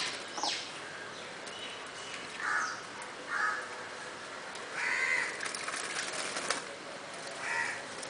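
A flock of jungle babblers giving short, harsh, grating calls, about six bursts, while one bathes in a water bowl with fluttering wing-splashes.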